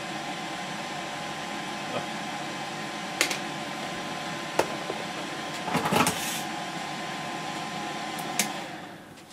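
Vacuum pump of an electric desoldering gun running with a steady hum while solder is sucked off a transistor's leads, broken by a few sharp clicks and taps. The hum winds down and fades near the end as the pump is switched off.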